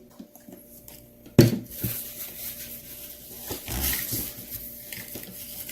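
Plastic slime sticks stirring and scraping in plastic mixing bowls as glue and slime activator are mixed into slime, with small clicks and one sharp knock about a second and a half in.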